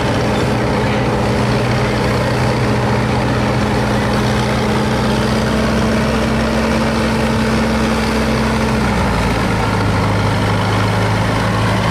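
Vintage farm tractor's engine running at a steady low speed, its note dropping slightly about nine seconds in.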